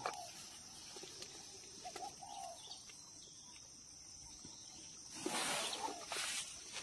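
Steady high-pitched insect buzz with a few short bird calls near the start and around two seconds in. About five seconds in, a rush of noise lasts about a second.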